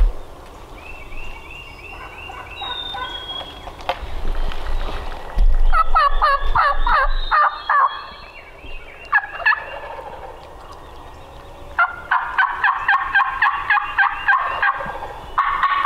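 Wild turkey gobbler gobbling twice, a rapid rattling call about five and a half seconds in and again about twelve seconds in.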